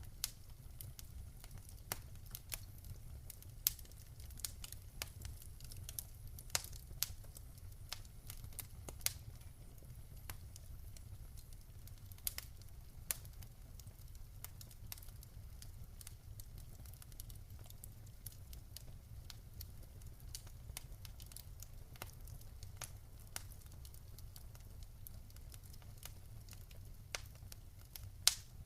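Wood fire burning in a fireplace: irregular sharp crackles and pops, a few louder ones now and then, over a steady low rumble of the flames.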